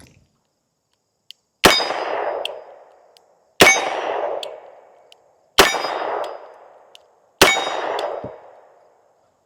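Four shots from a Smith & Wesson 586 revolver, fired slowly about two seconds apart. Each shot is followed by a ringing tail that dies away over about a second.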